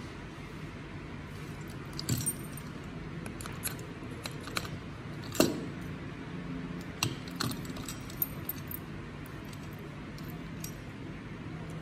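Scattered metal clicks and clinks from a round-knob door lock being turned and handled, its keys jangling in the cylinder. The loudest knock comes about five seconds in, over a steady low hum.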